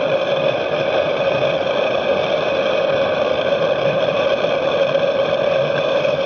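Two propane-butane gas burners burning in the boiler flues of a 1-inch scale live-steam Case traction engine, a loud, steady rushing noise with a constant hum at one pitch.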